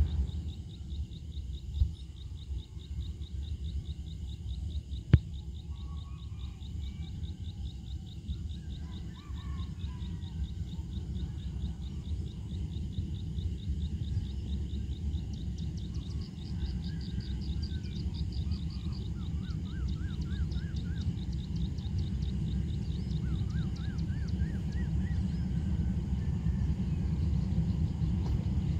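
Low rumble of a diesel locomotive hauling a commuter train, distant and growing slowly louder as it approaches. Above it, high rapid chirping and a few short rising-and-falling trills, with one sharp click about five seconds in.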